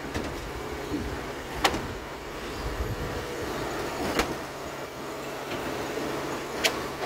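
Stationary concrete pump pushing concrete through a steel delivery pipeline over a steady low drone. A sharp knock comes three times, about every two and a half seconds, with each pump stroke.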